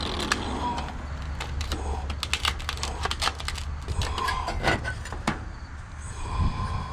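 Stainless steel sheet-metal pieces being handled and set in place: a run of irregular light clicks and knocks over a low steady hum.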